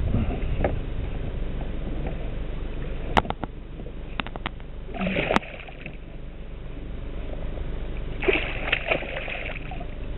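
Hooked pike thrashing and splashing at the water's surface beside a kayak. There is a short splash about five seconds in and a longer bout of splashing near the end, with a few sharp knocks before the first splash.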